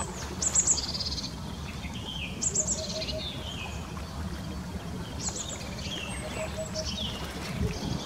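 Small birds chirping and trilling in short high-pitched phrases every couple of seconds, over a steady low background rumble, with faint short low notes repeated in quick runs now and then.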